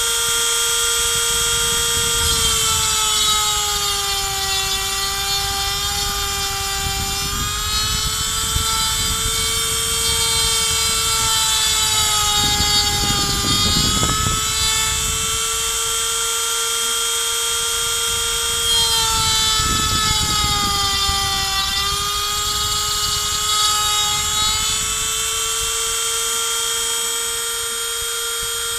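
A 135-watt handheld rotary tool, acting as the spindle of a mostly printed CNC router, runs a 3 mm bit through pine. Its high whine is steady but sags in pitch several times and recovers, with a rough cutting noise coming and going underneath.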